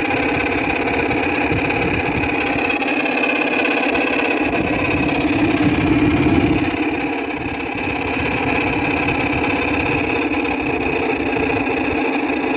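Whirlpool window air conditioner running, with loud bearing noise from its fan motor: a steady high whine over a broad mechanical hum that swells slightly about six seconds in. The fan motor's bearings are worn and dry, in need of oil.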